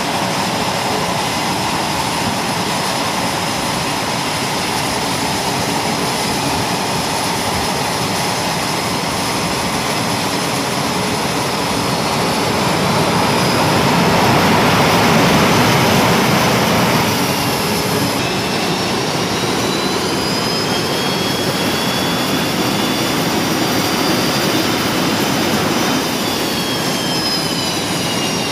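Jet aircraft engines running on a carrier flight deck: a loud, steady rush that swells for a few seconds around the middle. Then high turbine whines glide upward, and near the end others glide downward.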